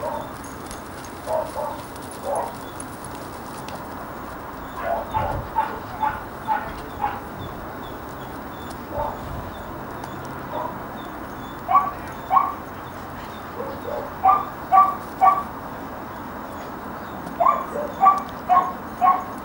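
Dog barking: short, sharp barks in runs of two to four, a few seconds apart, with the loudest runs in the second half.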